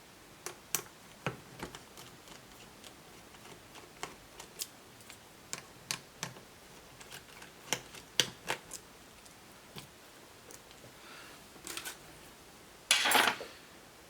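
Screwdriver work on a laptop's screen hinge screws and plastic parts: scattered sharp clicks and taps, with a louder brief scrape near the end.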